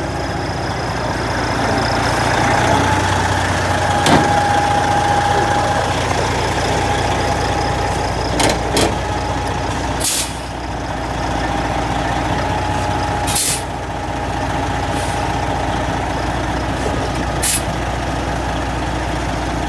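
Semi tractor's diesel engine idling steadily, with several short, sharp hisses of air from the truck's air system, the clearest about ten and thirteen seconds in.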